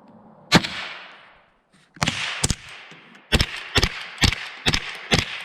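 .22 rimfire rifle shots at cans, about eight sharp cracks, each with a short echo: one single shot, a pair, then a quick even string of about two shots a second.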